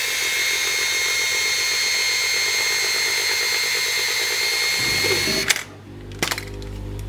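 Canon EOS 630's built-in film-transport motor rewinding a roll of 35mm film into its cartridge at the end of the roll: a steady high whine that stops about five and a half seconds in, followed by a few clicks. The camera is set to leave the film leader out after the rewind.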